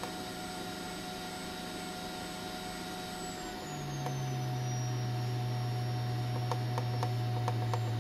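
Metcal HCT2-120 hot air station's built-in air pump running with a steady hum. About three and a half seconds in, as the airflow setting is stepped down, the hum drops in pitch and grows louder, and a high thin whine glides down with it. Near the end, faint ticks come about three a second.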